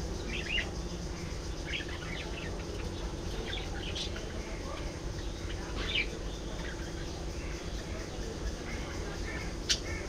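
Budgerigars chirping in short, scattered calls over a steady low hum, with one sharp call near the end.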